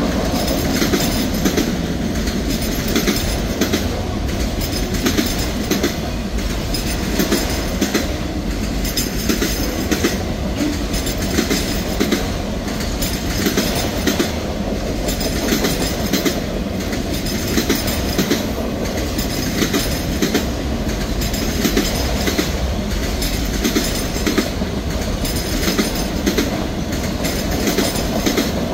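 Autorack cars of a Norfolk Southern manifest freight train rolling past: a steady wheel-and-rail rumble with repeated clickety-clack as the wheels strike the rail joints.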